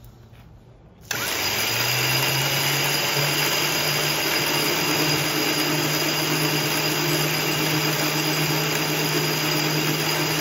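Restored Rolls-Royce Merlin 25 V12 aero engine, not firing, turning over on its display stand. It starts suddenly about a second in as a loud, steady mechanical whirr with a low hum that steps up slightly in pitch a second later, over a thin high whine.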